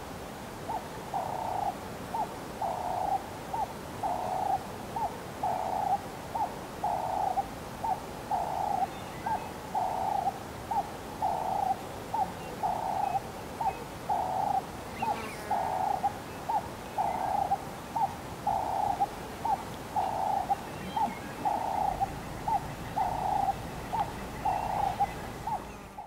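A steady, repeated hooting call, a short note followed by a longer one at the same pitch, about every second and a half. A falling whistle comes in about halfway through.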